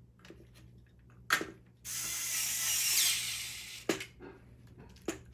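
A screw being driven into the DVR's hard-drive mount: a sharp click, then about two seconds of steady mechanical rasping as the screwdriver turns. Two more sharp clicks follow near the end.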